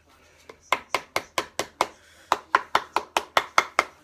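Hammer with its head wrapped in cloth tapping rubber edge trim into the groove along a wooden cupboard panel's edge: two quick runs of sharp knocks, about four or five a second, with a short break about two seconds in.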